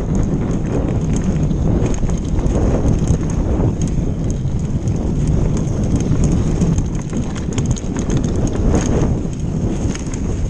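Giant enduro mountain bike descending a snowy trail at speed. Wind buffets the microphone, and the tyres rumble over the snow-covered ground, with frequent rattling clicks from the bike jolting over bumps.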